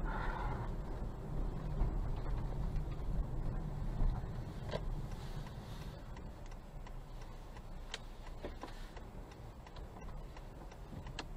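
Low rumble of a slow-moving car heard from inside the cabin, with a few faint sharp ticks scattered through the second half.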